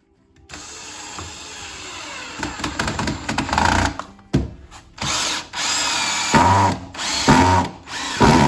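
Power drill driving screws into cabinet panels: one long run of about three seconds, then several short trigger bursts.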